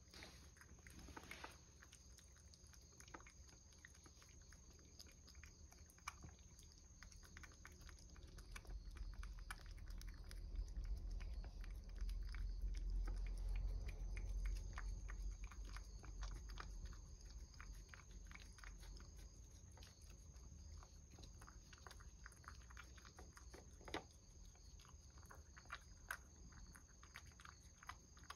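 Cat licking and eating a lickable paste treat from a bowl: a steady run of small wet clicks and smacks of tongue and mouth. A low rumble swells through the middle.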